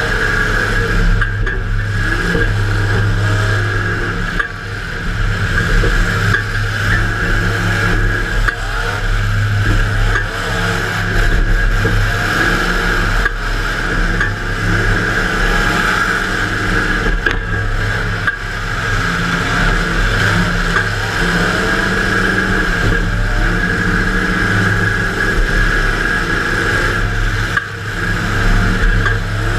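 Demolition derby car's engine running loud and revving, heard from inside the car.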